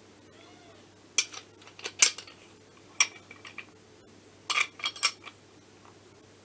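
Steel hand tools clinking: a 17 mm open-end spanner and a bearing-installer tool's threaded rod and lock nut knocking against each other as they are handled and tightened. Sharp clinks about a second in, twice around two seconds, once at three seconds, then a quick cluster of several between four and a half and five seconds.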